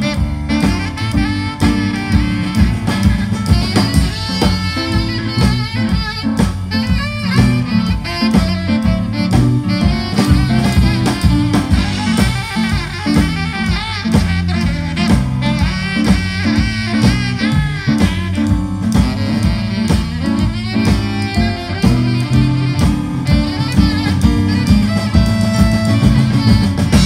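Live blues band playing an instrumental passage: two saxophones over a walking electric bass line and a drum kit.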